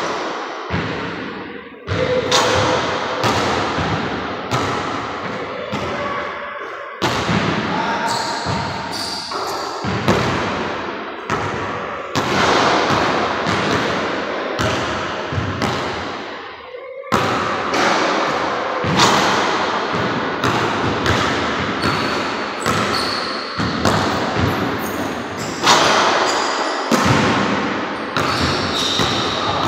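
Basketball bouncing on a hardwood gym floor as it is dribbled and rebounds after shots, with shots striking the backboard and rim. Each impact is sharp and followed by a long echo in the large empty hall, and a few short high sneaker squeaks come late on.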